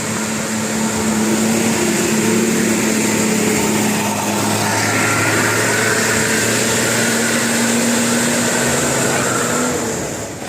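Vehicle engine running steadily, with a hiss that comes in about halfway and fades shortly before the end.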